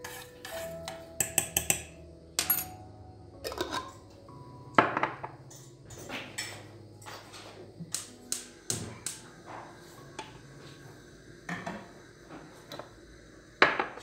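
A metal spoon clinking and scraping against a glass jar and a metal saucepan, a run of light clinks and knocks, with a sharp knock near the end as the glass jar is set down on the counter.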